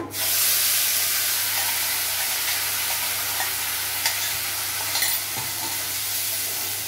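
Wet tomato, green chilli and ginger paste hitting hot oil and spices in a kadhai: a loud sizzle that starts suddenly and holds steady, easing off slowly. A couple of light knocks sound about four and five seconds in.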